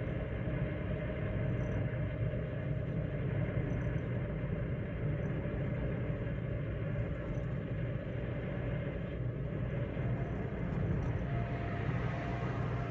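Chevrolet Spin 1.2 LT cruising steadily on a highway: a steady low rumble of tyres on the road, with engine hum.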